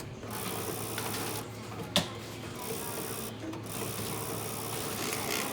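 Whirring and clicking of a self-checkout cash payment machine's mechanism as it handles cash, its high-pitched running noise starting and stopping several times, with one sharp click about two seconds in.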